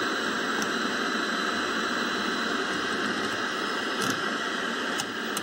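Steady static hiss from the speaker of a 1986 GoldStar-built Montgomery Ward 13-inch colour TV receiving no signal, its screen full of snow. A few sharp clicks come about four and five seconds in as a front-panel knob is turned.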